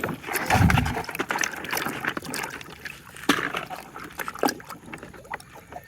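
Water trickling and sloshing as plastic toy vehicles are washed, with scattered clicks and knocks of the toys being handled and a low bump about half a second in.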